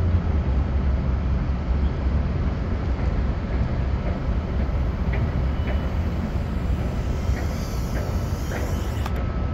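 Steady low rumble of wind and propeller noise from a BetaFPV Meteor whoop drone in low flight, with a few faint ticks in the second half.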